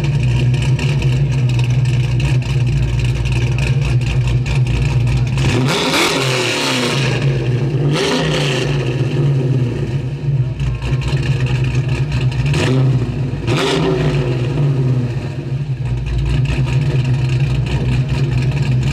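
Buick Nailhead V8 of a 1963 Riviera running with a steady low rumble, revved in short blips four times, twice in the middle and twice a little later, each rev rising and falling back to idle.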